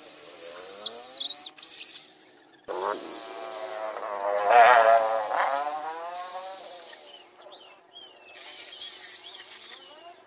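Corded electric drill boring into a thick wooden slab, its motor whine wavering in pitch as the bit loads up. It stops about a second and a half in, runs again for several seconds, loudest around the middle, then gives one more short run near the end.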